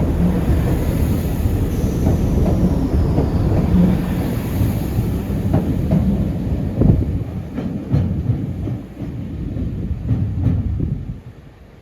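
Class 165 diesel multiple unit pulling out: a steady low rumble with a run of sharp clicks as its wheels pass over rail joints, dropping away abruptly near the end.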